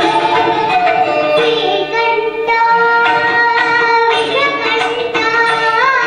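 A young girl singing into a microphone: a melodic line of long held notes, ornamented with pitch slides and quick turns.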